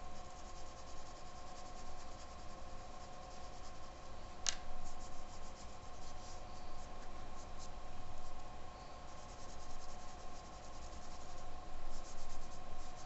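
Soft pastel scraping across drawing paper, then fingertips rubbing the pastel into the paper to blend it, in short scratchy strokes that come in bursts. A steady hum runs underneath, and there is one sharp click about four and a half seconds in.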